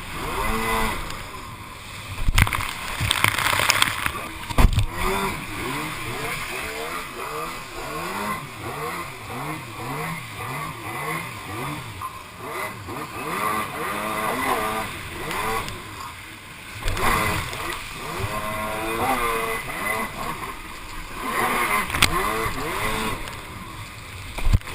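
Two-stroke engine of a stand-up jet ski revving up and down again and again, its pitch rising and falling every second or so, with four sharp thumps along the way.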